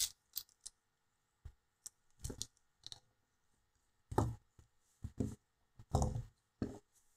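Scattered light clicks and taps of a small FPV drone's carbon-fibre frame and parts being handled and unscrewed with a hex driver, with heavier knocks about four and six seconds in.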